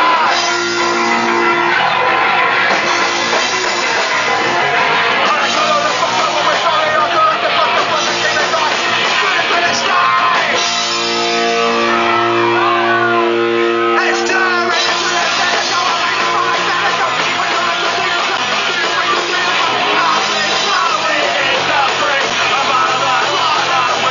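Live punk rock band playing loudly: distorted electric guitar, bass and drums, with shouted vocals into the microphone. About halfway through the band holds a chord for a few seconds before driving on.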